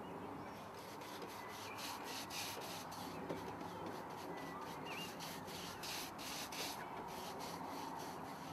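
Paintbrush scrubbing gritty anti-slip deck coating, which carries an aluminium oxide grit, into wooden deck boards. The scratchy rubbing strokes repeat back and forth, strongest through the middle.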